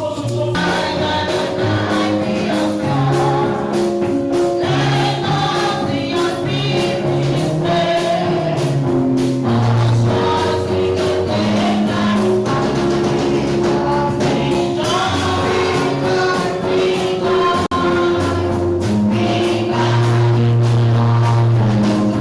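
A choir singing gospel music with instrumental backing, and a tambourine keeping time.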